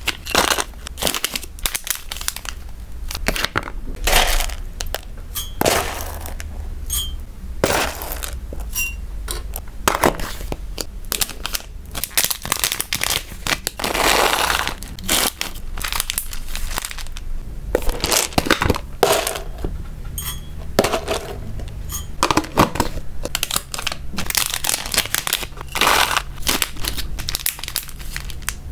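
Plastic snack packaging crinkling and rustling as it is handled and filled with hamster food, in irregular sharp crackles with a longer stretch of continuous rustling about halfway through.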